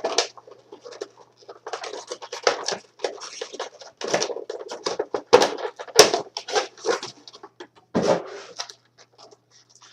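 Handling noise from a scale model and its packaging: an irregular string of rustles, taps and scrapes that dies down near the end.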